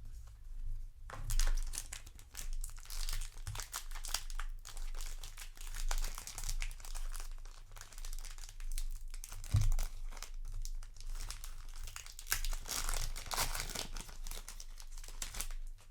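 Weiß Schwarz booster pack wrapper crinkling as it is handled and torn open, with a single thump about two-thirds of the way through.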